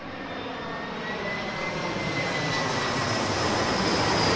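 Jet airliner passing close, its engine roar growing steadily louder, with a high whine that glides slowly down in pitch.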